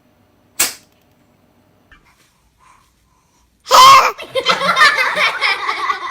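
A short sharp sneeze, then about three and a half seconds in a much louder sneeze followed by laughter.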